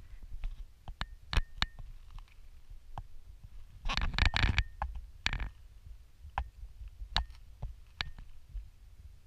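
Twigs and dry leaf litter rustling and clicking close to the microphone, with scattered sharp ticks and a burst of louder scraping about four seconds in and again just after five seconds, over a low handling rumble.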